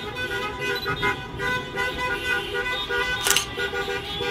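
Car horns honking in short repeated blasts, several overlapping, the street honking of a football victory celebration. A brief loud burst of noise stands out about three seconds in.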